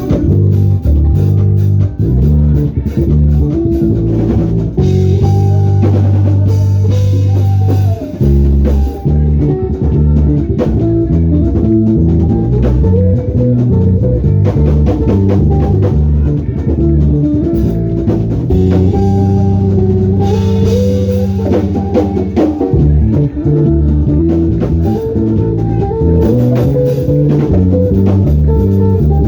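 Live band music with a prominent bass guitar line over guitar and drum kit, with steady, busy bass notes throughout.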